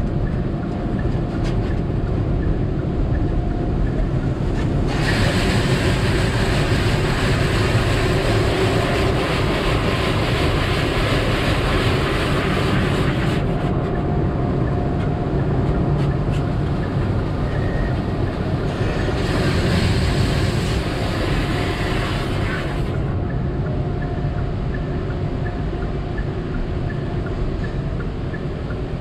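Automatic tunnel car wash equipment heard from inside the car's cabin: a steady low rumble, with two spells of loud hissing, about five seconds in and again near twenty seconds, as the car passes through the wash.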